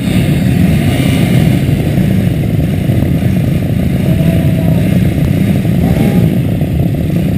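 A pack of supermoto motorcycle engines running together on a start grid, a loud, steady, dense drone.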